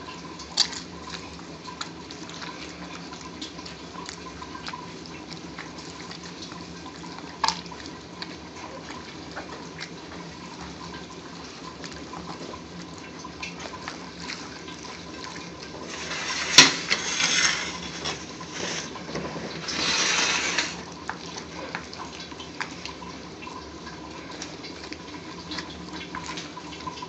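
Wet squelching of grilled tomatoes being crushed by hand and mixed with sliced onion and dried chilies in a bowl. It comes with a few soft clicks and two louder spells of squishing about two-thirds of the way through.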